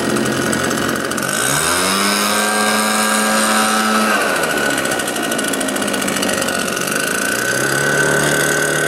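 Petrol backpack leaf blower engine running, its throttle opened about a second and a half in, held high for a couple of seconds, eased back, then opened again near the end.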